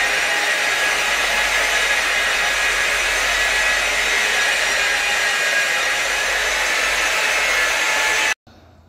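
Electric polishing machine running steadily on a red oxide floor, an even whirring hiss as it buffs the floor with a pad; it stops abruptly near the end.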